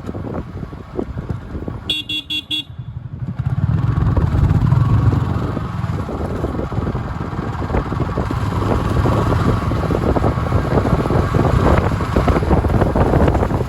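Busy road traffic with engines running close by. A quick series of short horn beeps sounds about two seconds in, and the engine noise grows louder soon after as vehicles pass.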